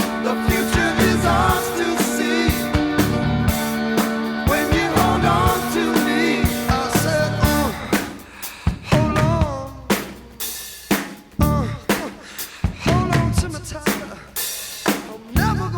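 Music with a drum kit, bass drum and snare hits under held notes and a wavering melody line; it becomes sparser and more broken about halfway through.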